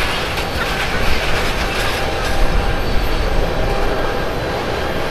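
Boeing 787-8's Rolls-Royce Trent 1000 jet engines at takeoff thrust during the takeoff roll: a loud, steady roar with a faint steady whine above it.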